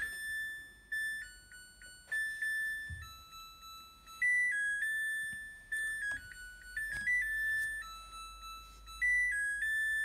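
Samsung Ecobubble WW70J5555FX washing machine playing its electronic melody, a tune of pure beeping notes stepping up and down in pitch, signalling that its drum calibration check has finished with no fault.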